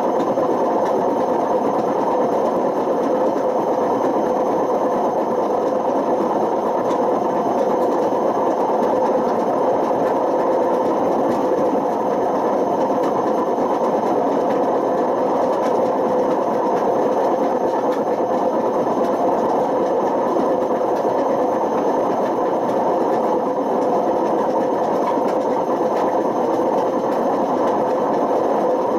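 Panasonic NA-127VB6 washing machine running with worn drum bearings: a loud, steady mechanical drone with a constant hum, unbroken and unchanging.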